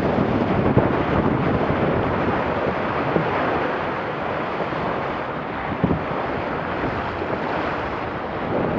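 Wind buffeting the microphone over water rushing and spraying along the hull of a Laser 2 dinghy sailing at about ten knots; the rush eases a little after a few seconds.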